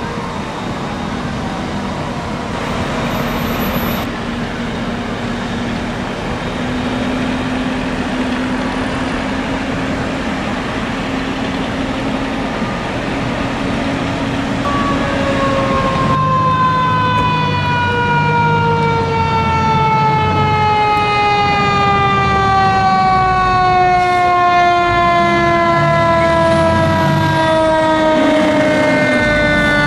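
Fire engine siren: over the first half a steady drone, then from about halfway a mechanical siren winding down in one long, slowly falling tone. Short low blasts that could be the engine's horn come and go under the wind-down, and another glide starts near the end.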